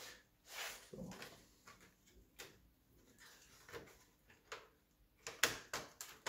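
Screws being backed out with a hand screwdriver and the plastic base of a Fujitsu AH540 laptop being handled: scattered faint clicks, taps and scrapes of plastic and metal. The clicks are denser and louder near the end.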